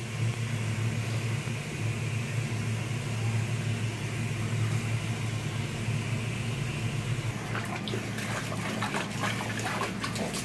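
Garden hose pouring water into a small plastic dog paddling pool: a steady rushing fill with a low hum. About three-quarters of the way through, irregular splashes and slaps in the water start.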